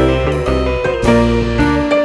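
Background music led by piano or electric piano, playing a steady run of chords over a bass line.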